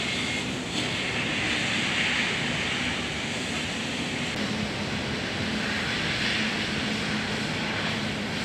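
Steady outdoor background noise: an even hiss with a faint low hum beneath it.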